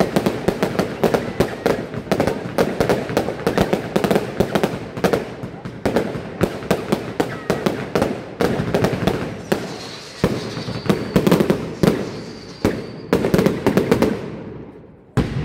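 Fireworks display: rapid bangs and crackling of aerial shells bursting, several a second, thinning out and fading near the end.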